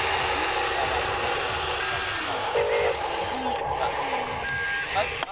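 Electric motors of a Huina RC excavator whining, each rising in pitch as it starts and falling as it stops, as the arm and bucket work over a dump truck, with a few short electronic beeps.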